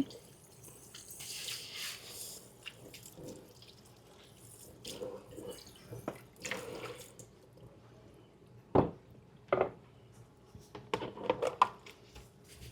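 Dishes being hand-washed at a kitchen sink: a brief run of tap water, then soft clinks and knocks of crockery, with two sharper knocks about nine seconds in and a few small clatters near the end.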